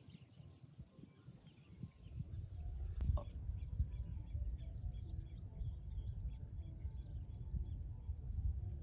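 Insects chirping in repeated groups of short, evenly pulsed high notes, over a low, dense crackle that gets louder about two seconds in, with one sharp click about three seconds in.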